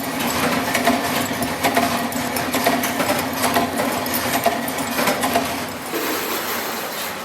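Workshop machinery running with a steady hum and rapid, irregular metal clicks and clinks. The clatter stops about six seconds in, leaving the hum and a faint high whine.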